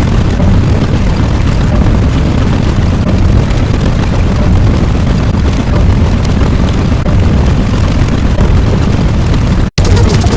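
A loud, continuous low rumble sound effect, dropping out for an instant near the end and then carrying on.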